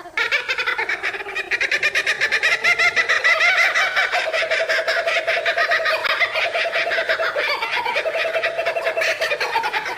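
Kookaburra call: a long, rapid laughing chorus of quickly repeated cackling notes, many a second, without a break.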